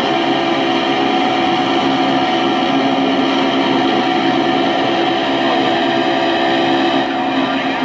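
Steady, many-toned aircraft engine drone from the display's soundtrack: recorded B-17 Flying Fortress engines running without let-up.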